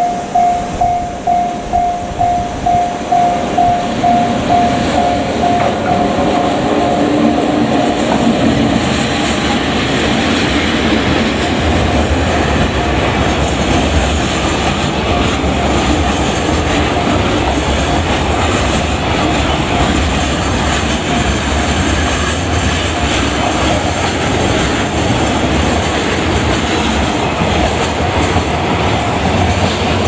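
Level-crossing warning bell ringing in even pulses, about two a second, soon drowned out as a JR Freight ED76 electric locomotive and a long train of container wagons pass close by. The wheels make a loud, steady rumble and clatter on the rails that keeps on to the end.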